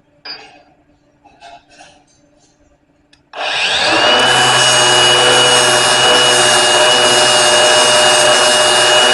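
An electric grinder starts about three seconds in and runs steadily, its high whine rising briefly and then holding over a rough hiss. Before it starts there are a few light knocks.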